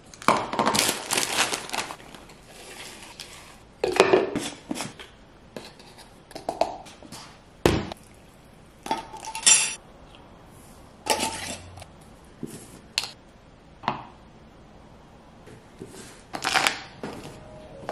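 Irregular clinks, knocks and rustles of smoothie ingredients going into a plastic Nutribullet blender cup: milk poured from a carton, and a jar lid unscrewed near the end. A sharp knock comes just under eight seconds in.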